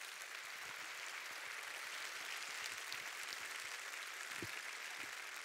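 Audience applauding in a large hall: a steady spread of clapping.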